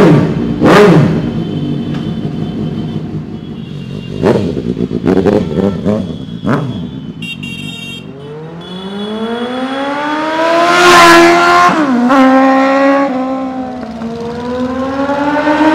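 Sport superbike with an aftermarket exhaust, loud. First comes a series of sharp throttle blips, then a long rising run as it accelerates hard, with the pitch dropping sharply at an upshift just after the loudest point and again near the end.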